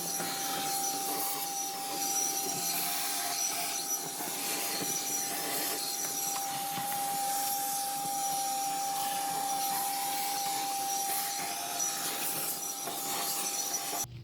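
A small motorised tool or machine running steadily, with a constant mid-pitched whine over a hiss, cutting off abruptly near the end.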